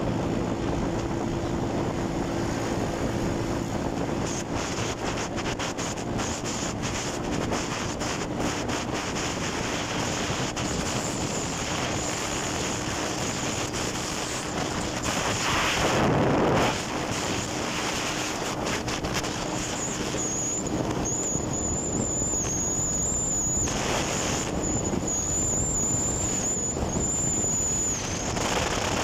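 Wind rushing over the microphone of a moving motorcycle, with a steady low engine hum underneath, swelling louder for a moment about sixteen seconds in. A thin high whine comes and goes over the last several seconds.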